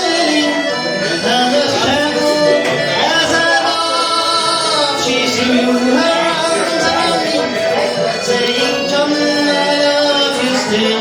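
A live pub band playing Irish folk music, with singing over the instruments.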